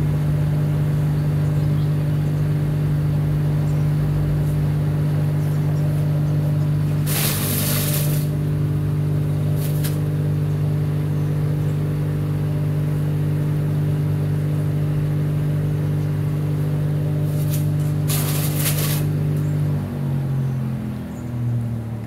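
Hansa C3e electric wood chipper running empty with a steady hum, then switched off about 20 seconds in, its motor and cutter winding down with falling pitch. Two brief hissing bursts about 7 and 18 seconds in.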